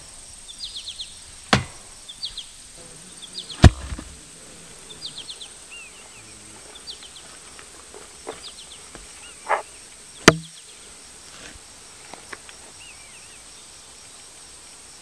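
Forest ambience with birds giving short, high chirps again and again, broken by three sharp, loud impacts: about a second and a half in, just before four seconds (the loudest), and just after ten seconds.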